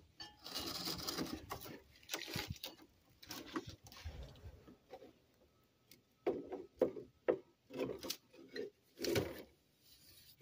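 Plastic grass catcher top being worked onto a mower's rear bumper: scraping and rubbing in the first few seconds, then a run of short knocks and clunks as it is pushed into place. It will not seat fully because the oil fill dipstick is in the way.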